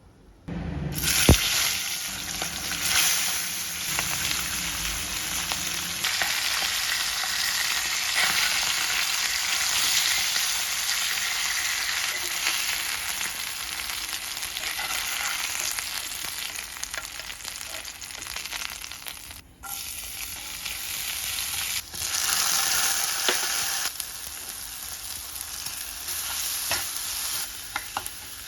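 Food sizzling and spitting in hot oil in a pan while being stirred, starting suddenly about a second in with a sharp knock just after. The sizzle breaks off briefly twice near the end.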